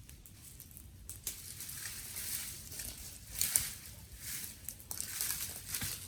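Dry twigs and sticks crackling and snapping: scattered sharp cracks over swells of rustling, crackly noise, loudest about three and a half seconds in.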